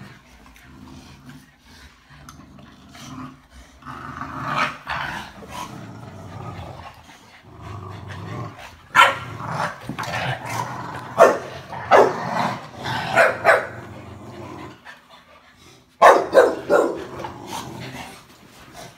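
Olde English Bulldogges growling in play while tugging at a ball toy, a low rumbling growl broken by short, sharp barks a few seconds in, several times in the middle, and again near the end.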